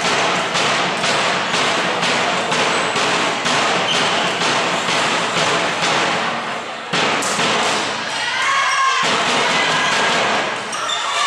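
Rhythmic clapping from the team or spectators, about three claps a second, echoing in a sports hall and stopping about seven seconds in. After it, girls' voices shout during play.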